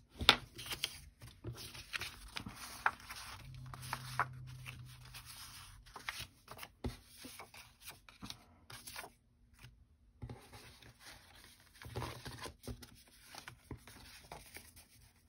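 Paper and cardstock being handled: sheets of patterned paper rustling and sliding against each other and the cutting mat, with a sharp tap just after the start and scattered lighter taps.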